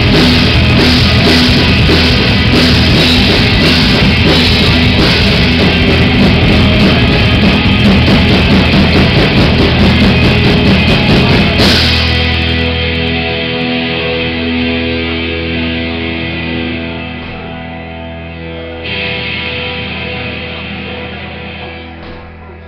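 Live rock band playing loud, with drum kit and electric guitars. About halfway through the band stops abruptly and a held chord rings on, fading slowly.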